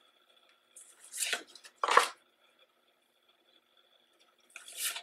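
A stack of large cardstock photo cards being handled and shuffled by hand, with short paper slides and taps as a card is moved to the back of the stack. Three such sounds, the loudest about two seconds in and another near the end.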